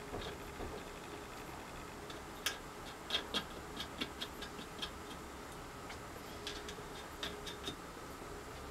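Light, irregular clicks, a few a second, from tightening up a homemade leather embossing press.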